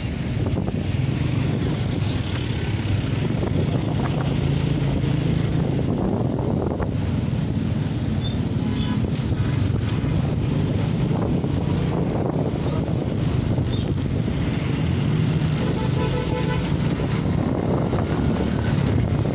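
Motorbike running on the move through road traffic, its engine hum mixed with wind rushing over the microphone.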